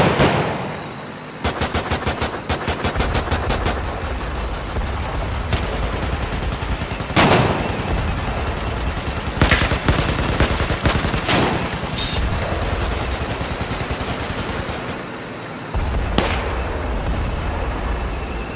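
Sustained automatic gunfire in rapid bursts, with several louder single blasts standing out: one at the very start, one around seven seconds in, and two between nine and eleven seconds in.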